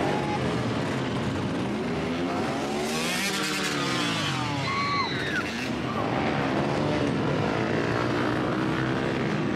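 Vehicle engines running and passing by, one passing close about two to four seconds in with its pitch rising and then falling.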